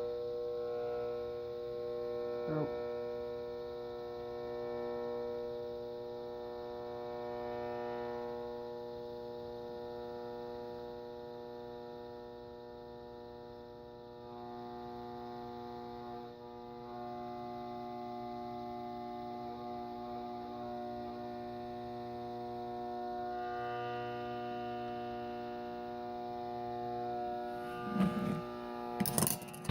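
56-inch Airmaster ceiling fan motor humming on a low speed-control setting: a steady electrical hum with many overtones, the motor energised but not starting, which the owner puts down to a dead spot. A few knocks near the end.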